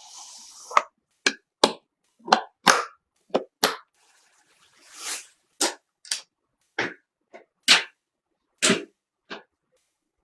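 A series of sharp clicks and knocks, about a dozen at uneven spacing, from computer parts being handled and fitted together during a PC build, with a short sliding hiss about five seconds in.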